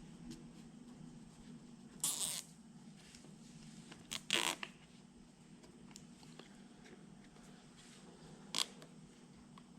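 Plastic cable tie being pulled tight through its ratchet: a few short zipping rasps, the longest about two seconds in, two more around four seconds in and a brief one near the end, over a low steady hum.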